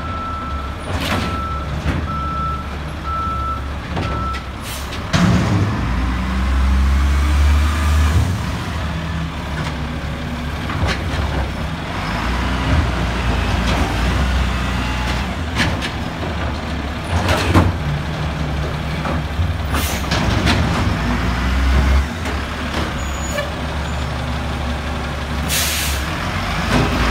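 Peterbilt garbage truck's reversing beeper sounding until about four seconds in, over the engine running and rising in revs as the truck pulls away. Several short air-brake hisses, with a longer hiss near the end.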